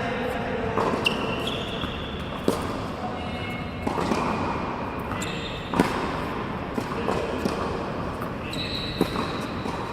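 Tennis balls being struck by rackets and bouncing on an indoor court: sharp, echoing hits every second or two, with a few short high squeaks in between.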